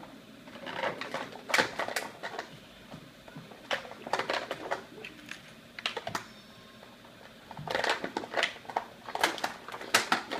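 A toy's packaging being opened by hand: repeated bursts of sharp crackling and clicking, as stiff packaging is pulled and handled.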